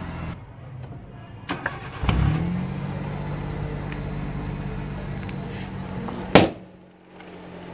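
Suzuki Alto engine idling steadily while its exhaust inflates a balloon stretched over the tailpipe. About six seconds in, the balloon bursts with one sharp, loud bang.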